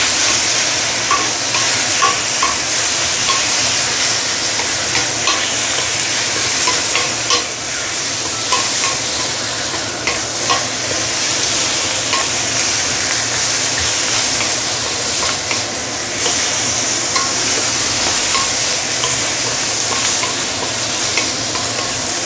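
Marinated chicken pieces sizzling in hot oil in a stainless steel wok while a wooden spatula stirs and turns them, with frequent light irregular knocks and scrapes of the spatula against the pan.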